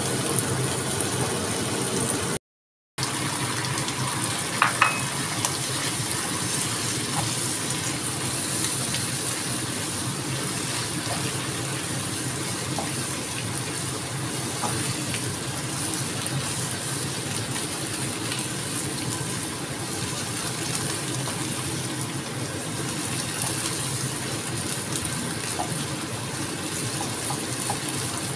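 Squid and vegetables sizzling in a non-stick pan on a gas stove as a spatula stirs and tosses them, a steady frying hiss with a couple of sharp taps about five seconds in. The sound cuts out for a moment about two and a half seconds in.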